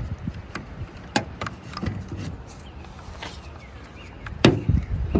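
Handling noise from a cordless circular saw and its battery: a few light clicks and one sharper knock about four and a half seconds in, over a low wind rumble on the microphone.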